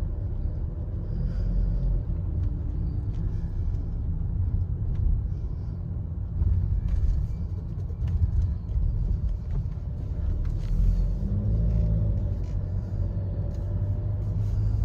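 A car being driven: a steady low rumble of engine and road noise.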